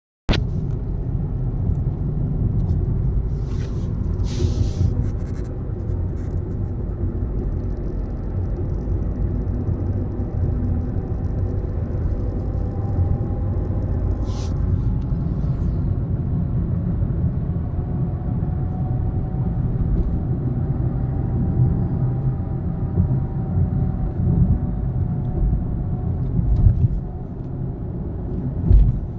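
Tata Altroz XZ 1.2-litre naturally aspirated petrol car on the move, heard from the cabin: a steady low rumble of road and engine, with a few brief clicks about four to five seconds in and again around fourteen seconds in.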